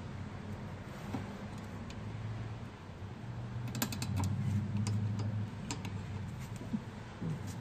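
Needle-nose pliers clicking and scraping against metal on a car's front suspension knuckle, with a quick cluster of sharp metallic ticks about four seconds in and a few more later, over a steady low hum.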